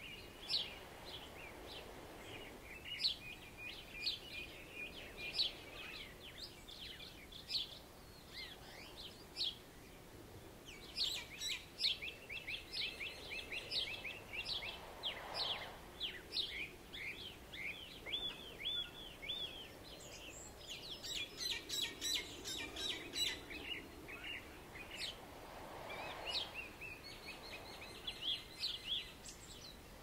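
Birds singing in a dawn chorus, with many quick chirps and trills overlapping throughout. Beneath them is the soft wash of waves, swelling about halfway through and again near the end.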